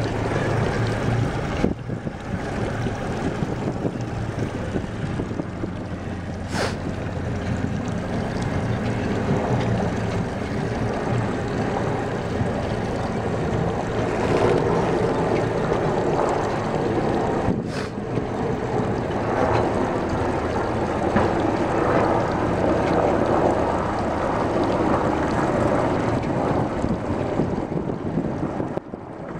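Inboard diesel engine of a Yanmar FX24 Topran boat running steadily with a low hum, with wind buffeting the microphone.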